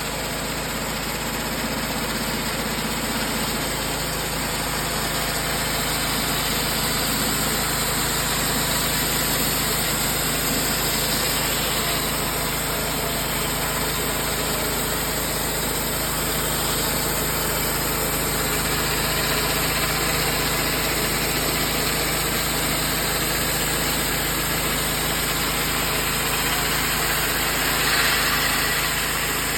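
Subaru Robin gas engine of an EZ portable sawmill running steadily as the mill saws a one-inch board off a squared log, with a brief louder swell near the end.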